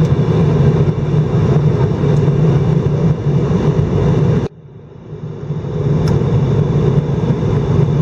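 Steady airliner cabin noise from an Airbus A319 in flight on approach: engine hum and airflow with a strong low drone. It drops out abruptly about halfway through and swells back to full level over a second or two.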